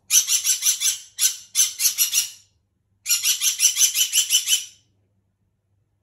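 Green-cheeked conure screaming: loud, harsh, rapid screeches at about six or seven a second, in several runs with short gaps, stopping a little under five seconds in. This is the typical loud conure scream.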